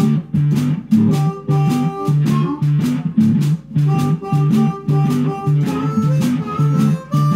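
Blues band playing: a guitar repeating a riff over a drum kit that keeps a steady beat.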